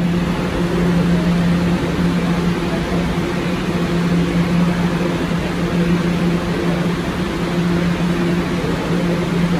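Inside a 2023 Kawasaki R211A subway car running at speed: steady wheel-on-rail noise with a steady low electric hum from the train.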